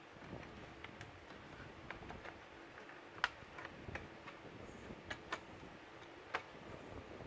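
Irregular small plastic clicks and snaps as a laptop's plastic case is worked open, its clips releasing; the two sharpest clicks come about three and six seconds in.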